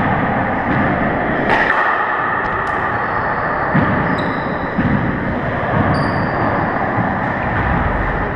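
Handball rally on a four-wall court: a few sharp smacks of the rubber ball off hands and walls, the sharpest about one and a half seconds in, with brief shoe squeaks on the hardwood floor, all over a loud steady rushing noise.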